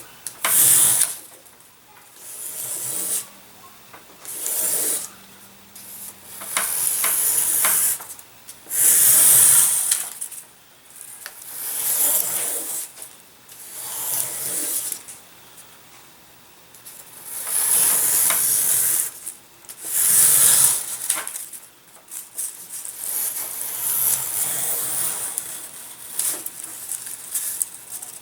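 Razor plane shaving the wing sheet into an airfoil: a series of short scraping strokes, each a second or so long, with brief pauses between them.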